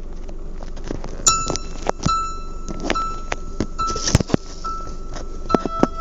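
Scattered clicks, knocks and clinks of things being handled inside a car's cabin, with a high steady electronic tone sounding on and off from about a second in.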